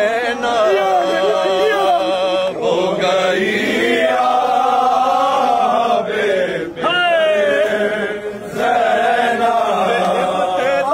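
A man chanting an Urdu soz, a Shia mourning lament, in a slow melodic recitation with long sliding notes.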